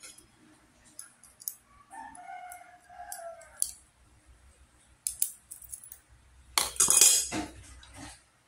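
A rooster crows twice: a fainter crow about two seconds in and a loud, rough call near the end. Between the crows come light clicks of a metal utensil against sea snail shells.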